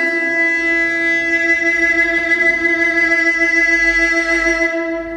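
Music: a violin holding one long note with vibrato, fading out near the end.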